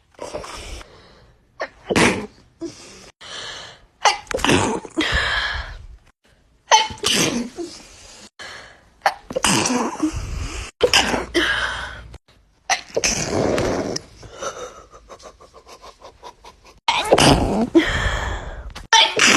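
A person sneezing over and over in a sneezing fit: loud, sudden sneezes every second or two, with short quiet gaps and one longer pause before a last pair.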